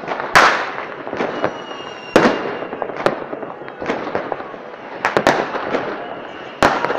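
Aerial fireworks shells bursting: a run of sharp bangs about one to two seconds apart, each trailing off into echo, with two bangs in quick succession late on.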